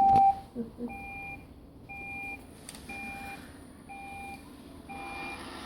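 iRobot robot vacuum beeping at one steady pitch about once a second, each beep about half a second long, over a faint steady hum.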